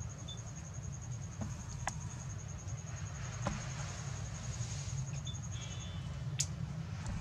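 An insect's high-pitched trill of evenly spaced pulses, several a second, stopping about six seconds in, over a steady low rumble and a few faint clicks.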